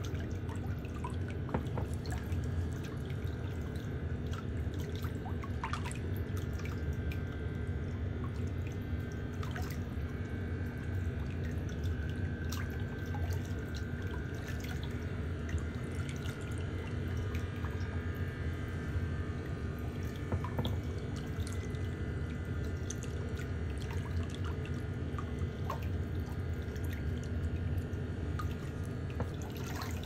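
Small scattered clicks and scrapes of a stainless-steel cuticle pusher working under and around toenails, over a steady low hum.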